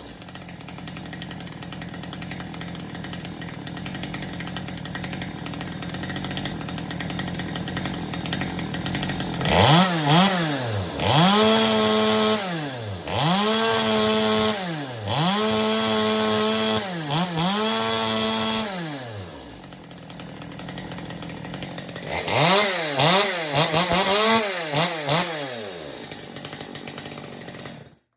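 Ported Stihl two-stroke chainsaw idling, then revved to wide-open throttle five times, each time held about a second and a half at a high scream before dropping back to idle. After a short idle come several quick throttle blips, and the engine is shut off just before the end. The high-speed jet is being tuned between runs, the saw screaming at around 13,000 to 14,000 rpm at full throttle.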